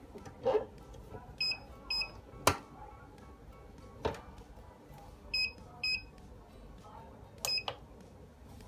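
Mug heat press: its digital controller gives short electronic beeps in three pairs, and the clamp handle closes on the mug with a sharp clack about two and a half seconds in, followed by a lighter click about a second and a half later.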